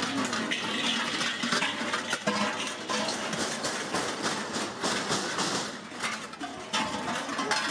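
Many large cowbells worn by Perchten runners, clanging together in a dense, continuous metallic clatter.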